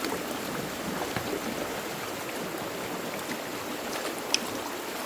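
Steady rush of pond water draining through a freshly unclogged culvert, with rain falling. A sharp click about four seconds in.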